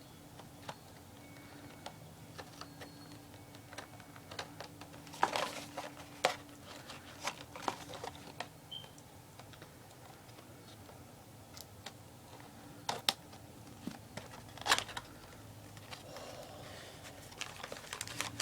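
Scattered clicks, taps and crinkles of a toy's packaging being handled, loudest about five to eight seconds in and again twice later.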